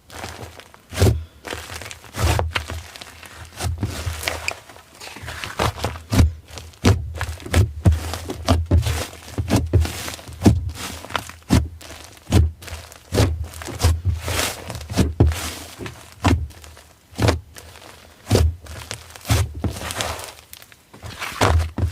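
Slime being pressed and squished by hand, with irregular sticky pops and clicks about one to two a second, each with a soft low thump.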